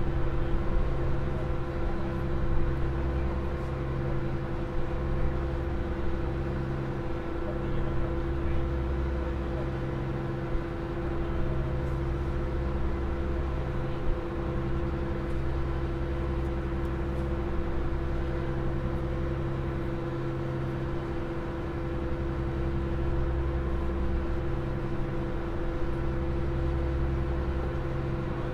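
Open car ferry's engines running under way: a steady hum with a deep rumble beneath that swells and fades every few seconds.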